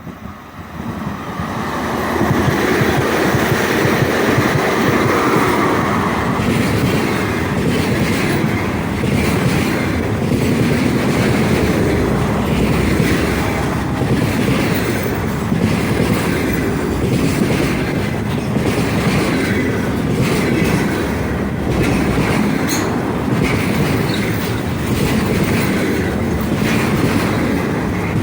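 Freight train hauled by a 3ES5K "Ermak" electric locomotive passing at speed. The sound swells over the first couple of seconds as the train arrives. It then settles into a steady heavy rumble of wagons, with regular clickety-clack of the wheels over rail joints.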